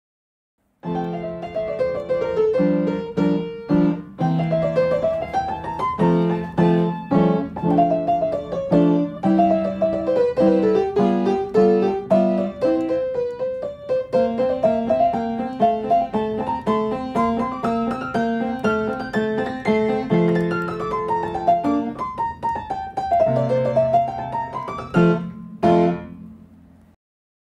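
Background music: a piano piece with quick runs of notes climbing and falling over a low bass line. It starts about a second in and fades out and stops just before the end.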